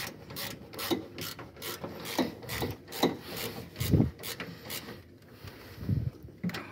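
Ratchet wrench clicking in an even rhythm, about two to three clicks a second, as the bolts of a newly fitted left engine mount are turned; the clicking stops about five seconds in. A few dull knocks of the tool against the mount come in between.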